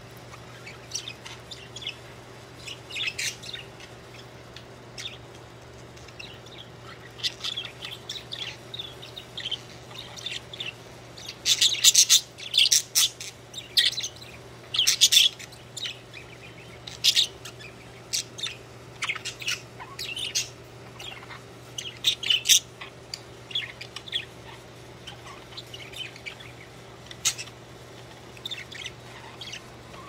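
Several pet budgerigars chirping and chattering in quick, short high calls, busiest and loudest about halfway through, over a faint steady low hum.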